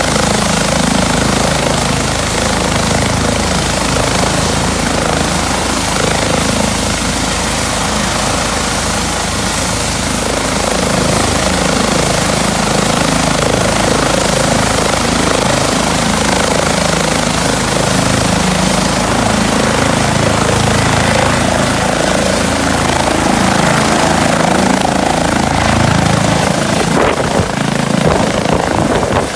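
Twin-turbine Eurocopter EC135 medical helicopter running on the ground, with a steady rotor beat. A high turbine whine climbs slightly in pitch over the second half.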